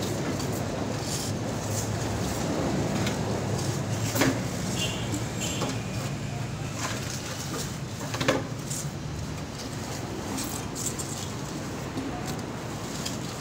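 Steady low engine drone of road traffic, with scattered knocks and scrapes from work on wet concrete, the two loudest knocks about four and eight seconds in.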